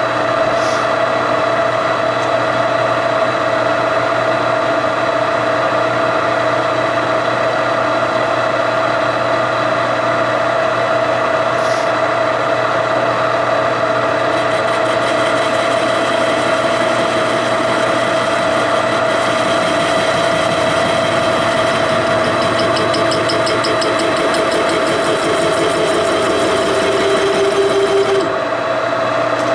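Metal lathe running with a steady whine while a parting tool cuts off a steel R8 shank. From about halfway in, the cut adds a high hiss and then a humming tone, both stopping abruptly shortly before the end as the cut finishes or the tool is backed out, while the lathe keeps running.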